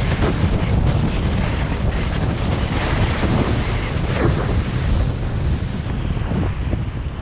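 Strong wind buffeting the microphone in a steady, rumbling roar, with the hiss and splash of water and waves over it.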